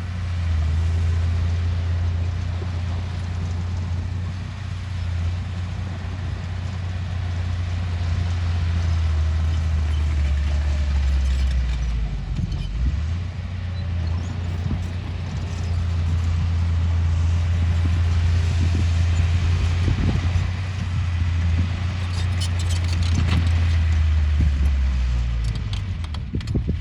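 Diesel engine of heavy earthmoving machinery running with a steady low drone. It dips briefly about halfway through, and some rattling and clicking comes in near the end.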